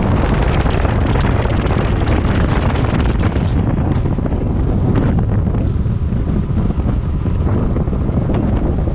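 Wind buffeting the microphone of a Ranger bass boat running across the lake. It is a steady, loud, low rumble, with the noise of the boat's run underneath.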